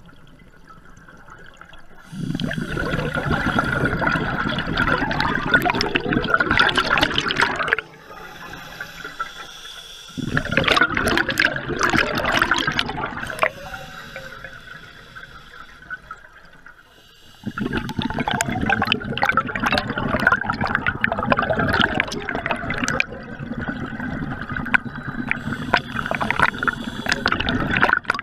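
Scuba regulator underwater: the diver's exhaled air leaving as long bursts of bubbles, three times (about two seconds in, about ten seconds in, and from about seventeen seconds on), with quieter stretches between while the diver inhales.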